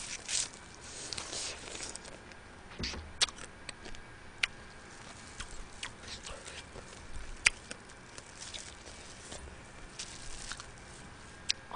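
Close-miked eating of spicy steamed gazami crab: chewing and sucking at crab pieces, with scattered sharp clicks and smacks, the sharpest a little past halfway.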